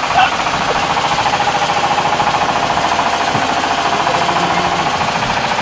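A motor running steadily with a fast, even rattle, most likely the fishing boat's engine.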